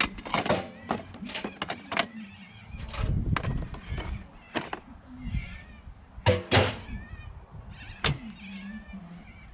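Irregular knocks and clunks, with a loud pair about six seconds in: a concrete block being loaded into an old washing machine and the machine being handled.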